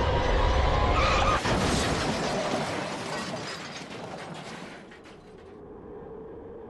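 Car crash sound effect: a loud low vehicle rumble gives way, about a second and a half in, to a burst of crunching, clattering metal and shattering glass that fades away over about four seconds, leaving a faint low hum.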